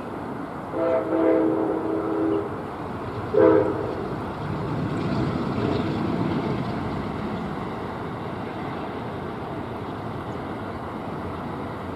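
Amtrak diesel passenger train sounding its multi-chime air horn, one long blast then a short one, then passing with a steady rumble of locomotive and cars.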